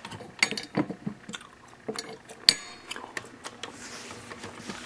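Scattered light clicks and clinks of small hard objects being handled, with one sharp metallic clink that rings briefly about two and a half seconds in.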